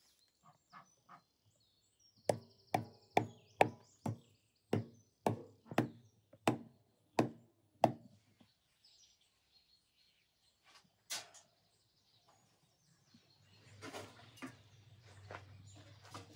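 Hatchet chopping a clump of animal hair on a wooden stump block: about a dozen sharp chops, roughly two a second, then a single knock a few seconds later.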